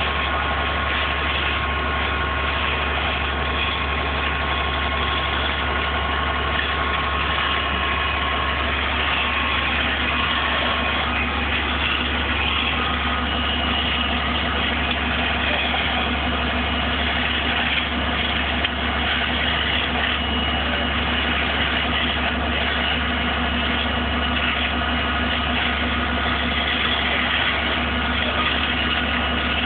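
A vehicle engine idling steadily, a low, even hum that does not change.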